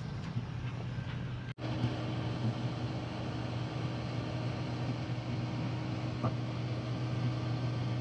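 A vehicle engine running steadily with a low hum. The sound drops out for an instant about a second and a half in, after which a faint steady higher tone joins it.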